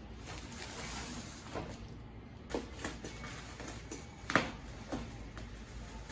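A few short, soft clicks and taps over low room noise, the loudest about four and a half seconds in.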